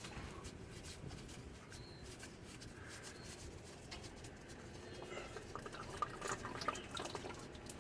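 Engine oil trickling and dripping out as the oil filter is unscrewed from the truck's 5.9 L V8. Faint clicks and knocks from handling the filter become more frequent in the last few seconds.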